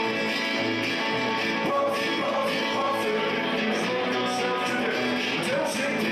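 Live band playing a song on electric guitar, acoustic guitar and electric bass, with a man singing into a microphone.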